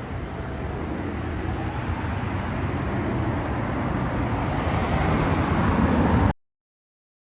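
Steady vehicle engine and road noise, a low rumble with a faint hum that grows slowly louder, then cuts off abruptly about six seconds in.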